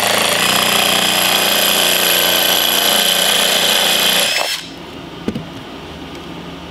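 18-volt cordless drill running at a steady high speed, its bit boring through the dried shell of a gourd. The motor stops abruptly about four seconds in.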